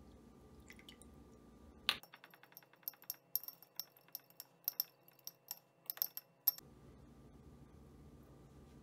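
Metal fork whisking a thin sauce in a small glass bowl, clinking sharply against the glass about four times a second for roughly four and a half seconds.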